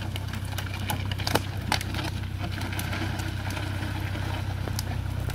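Fendt Farmer 2 tractor's diesel engine running steadily, with scattered sharp cracks and snaps of wood and branches, the loudest a little over a second in.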